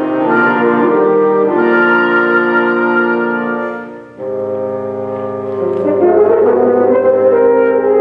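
Chamber wind ensemble of flutes, oboes, clarinets, horns and bassoons playing held chords. A little before halfway the sound thins out and nearly stops, then a new chord comes in sharply.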